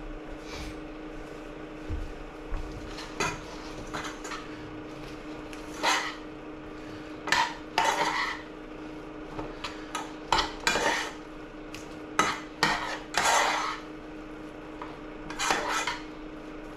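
A utensil clinking and scraping against a saucepan as baby spinach is stirred into cooked bulgur, in irregular strokes with a few longer scrapes later on.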